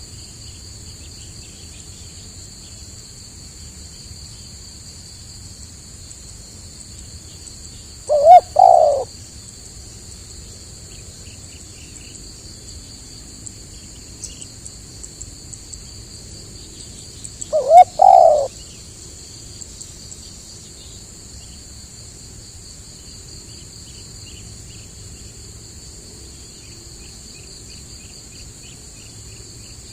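Spotted dove cooing twice, a short call of a few notes about eight seconds in and again about nine seconds later, over a steady high-pitched insect drone.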